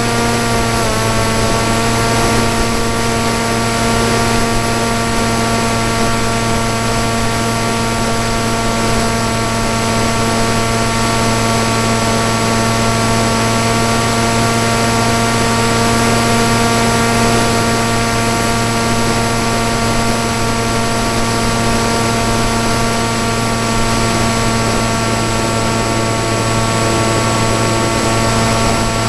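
Electric motor and propeller of a PopWing RC flying wing running at steady throttle, a constant pitched whine over a steady hiss. The pitch dips slightly about a second in, then holds.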